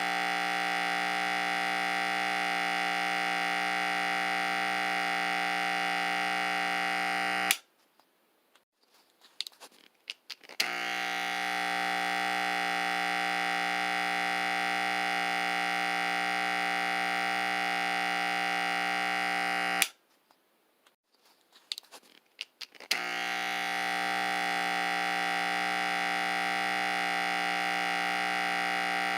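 Electric barber clippers buzzing steadily. They are switched off with a click about seven seconds in, with small handling clicks in the quiet gap, then switched on again. The same off-and-on cycle repeats about twenty seconds in.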